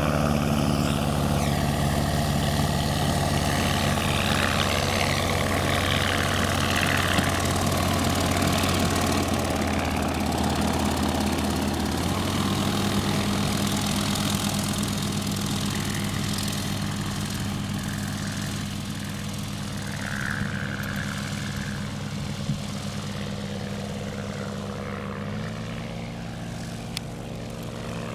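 SportCruiser light aircraft's propeller and Rotax 912 flat-four engine running steadily as the plane moves along the runway. The engine note changes about twelve seconds in and again near the end, and the sound slowly fades.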